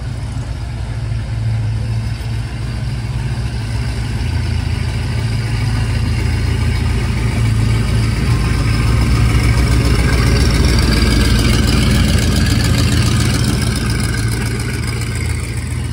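Chevrolet first-generation Camaro SS V8 running at low revs as the car pulls out and drives past, its deep exhaust rumble building to its loudest a little past the middle and fading near the end.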